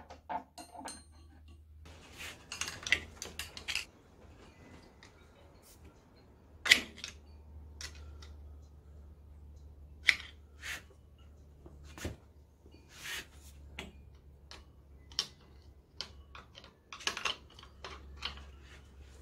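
Irregular sharp metallic clicks, taps and scrapes of hand work on an antique International Harvester engine's Type L magneto as it is worked loose, the loudest knock about seven seconds in, over a steady low hum.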